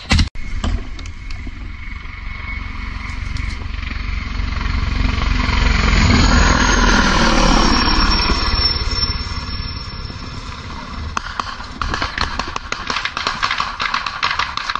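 Russian Mi-24 Hind attack helicopter passing low overhead: rotor and turbine noise swells to its loudest about halfway through, its high engine whine dropping in pitch as it goes over, then eases off. Near the end a rapid crackle of gunfire starts up, which may be fire aimed at the helicopter.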